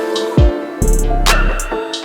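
Background music with a beat: deep bass drum hits that drop in pitch, sharp percussion and sustained instrumental tones.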